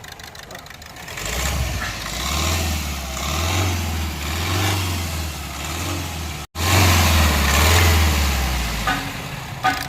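Vehicle engine being revved, picking up about a second in and then swelling and easing in waves, with a momentary dropout about two-thirds through. This engine gives a tak-tak knock on sudden acceleration, which goes away when the fourth injector's coupler is unplugged: a fault in the fourth injector, cylinder or its wiring.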